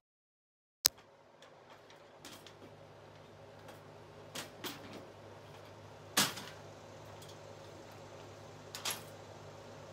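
Scattered sharp metal knocks and clanks as a trailer cargo load bar is worked loose and moved, the loudest about six seconds in, over a steady low hum. A sharp click comes just after a brief drop-out near the start.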